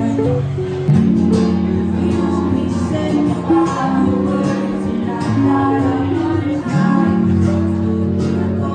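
Background music led by guitar, with sustained chords and a bass line.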